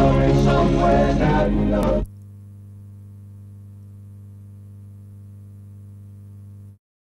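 Music with singing that cuts off abruptly about two seconds in. A steady low hum follows and stops suddenly just before the end.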